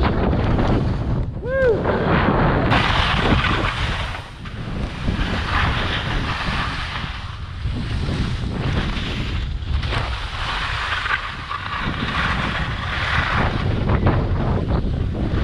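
Wind rushing over the microphone of a skier moving downhill, with skis scraping and hissing over packed, uneven snow.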